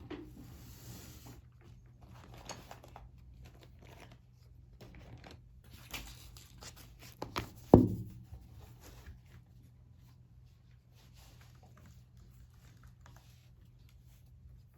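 Small handling sounds in a quiet room: light rustling and scattered taps, with one sharp knock about eight seconds in, the loudest sound.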